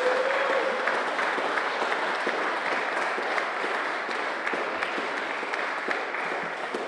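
An audience clapping and applauding at the end of a song, with the last held note ending about half a second in.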